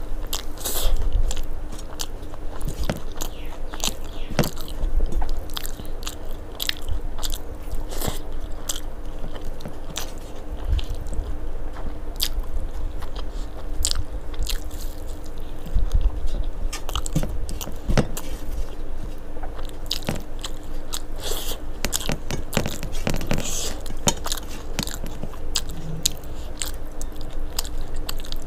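Close-up eating sounds: food being chewed and crunched in the mouth with many short wet clicks, and fingers mixing rice against a steel plate.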